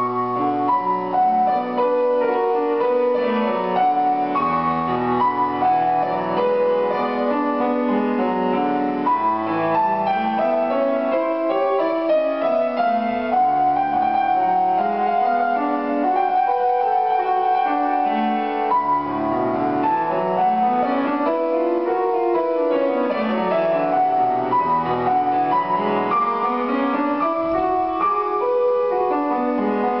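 Grand piano played solo, a lyrical song without words: a melody in the upper notes over broken chords in the bass that rise and fall.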